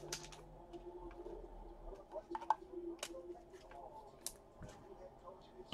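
Faint, scattered clicks and light rustles of trading cards and their packaging being handled, with a sharper click near the end.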